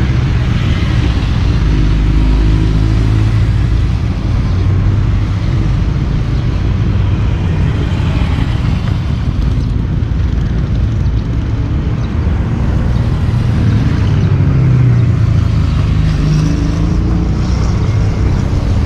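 Several motorcycles riding past one after another, their engines running loud and steady and rising in pitch as they accelerate away.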